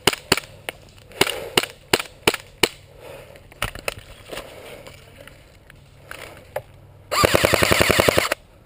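Airsoft guns shooting: single shots about three a second, thinning out, then a full-auto burst lasting about a second near the end.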